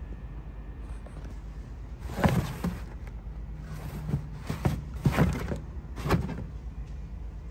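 Carpeted trunk floor panel over the spare tire being lifted and set back down: a series of rustles and dull thumps starting about two seconds in, over a steady low hum.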